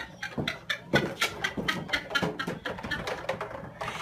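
A dog yapping in a quick run of short, high barks, about four a second.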